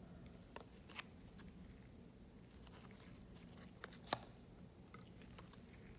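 Faint ticks and light rustling of chrome trading cards being slid and flipped through by hands in nitrile gloves, with a sharper click about four seconds in.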